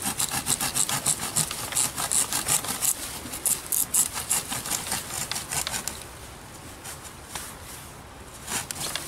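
Sawback spine of a Camillus Carnivore Inject machete sawing a wet dead branch: quick back-and-forth strokes for about six seconds, then a pause, then a short burst of strokes near the end.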